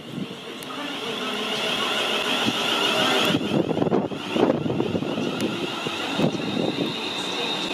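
ScotRail Class 380 Desiro electric multiple unit passing close by at speed, wheels running on the rails with a high whine over a rumble. The sound builds over the first couple of seconds as the train draws level and stays loud as the carriages go past.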